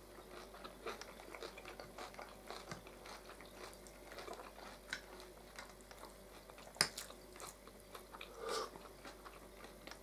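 Two people eating at a table: faint chewing and mouth sounds with soft clicks of forks and a knife on plates, and one sharper clink about seven seconds in.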